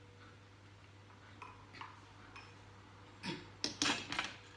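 Light clicks and knocks of kitchen things being handled on a counter: a few faint ticks, then a quick run of louder clacks about three seconds in.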